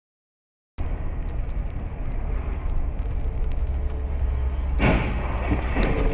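Silence at first, then the dashcam car's steady road and engine rumble heard from inside the cabin. About five seconds in, a sudden loud collision of two cars just ahead, with a sharp bang of debris about a second later.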